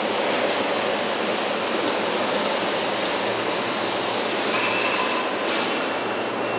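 Steady machinery din of a factory assembly hall, with a brief high-pitched squeal a little before five seconds in.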